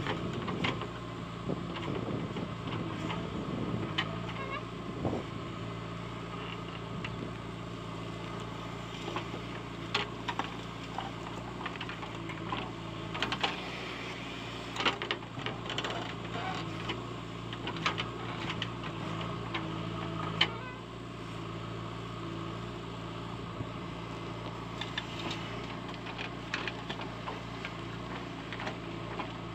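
JCB 3DX backhoe loader's diesel engine running steadily under hydraulic load while the backhoe digs and swings, with scattered sharp clanks and knocks from the bucket and arm.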